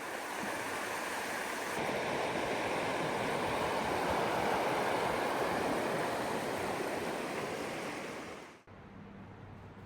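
Steady rushing of running water, which fades and stops abruptly near the end, leaving a much quieter hush.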